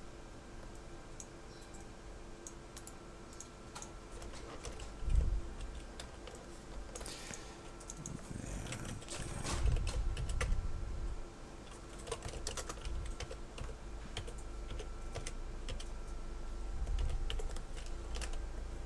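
Typing on a computer keyboard: irregular keystroke clicks, with a low thump about five seconds in and a louder noisy stretch around the middle, over a faint steady hum.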